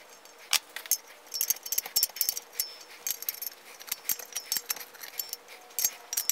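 Brass pipe fittings and a ball valve clinking and ticking as they are handled and turned by hand on a steel air tank: a run of sharp metallic clicks, some in quick clusters.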